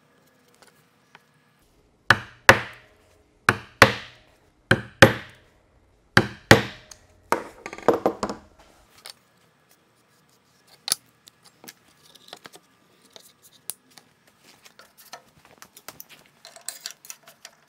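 Hammer striking a punch to mark hole centres through a paper template into a PVC trim board. There are four pairs of sharp taps, the two in each pair about a third of a second apart, then a quicker run of lighter taps, followed by faint clicks and handling noises.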